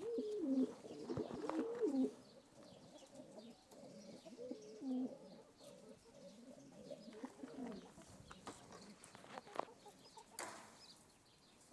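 Pigeons cooing, a run of low, rolling coos in the first two seconds and further coos about five and seven and a half seconds in.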